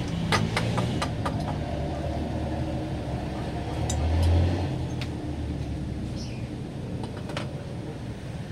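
Isuzu 4JA1 four-cylinder diesel engine running steadily, swelling briefly about four seconds in, with several sharp metallic clicks in the first second and a half.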